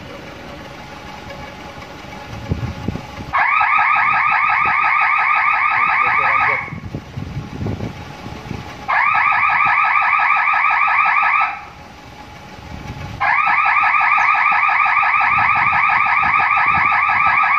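Electronic alarm buzzer sounding in three bursts of a few seconds each, a fast-pulsing, warbling two-note tone, with short pauses between bursts.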